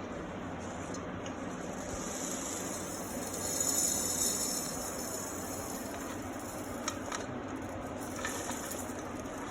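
Dry whole spices being handled and tipped into a mixer-grinder jar over steady room noise: a rustling swell about midway and a couple of light clicks near the end.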